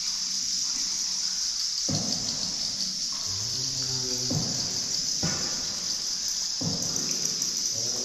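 A steady, high-pitched insect-like drone runs throughout, with a few short splashes of water at uneven intervals.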